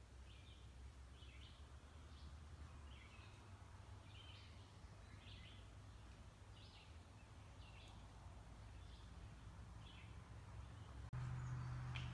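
Faint bird calls outdoors: short high chirps repeated about once or twice a second over a quiet background. Near the end a sharp click, then a steady low hum comes in and the level rises.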